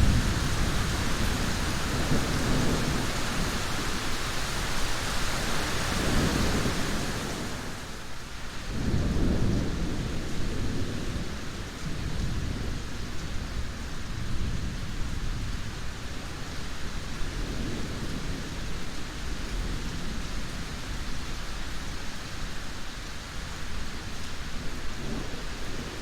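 Steady rain with rolling thunder rumbling several times. About eight seconds in, the rain hiss turns duller and quieter, and a long rumble follows.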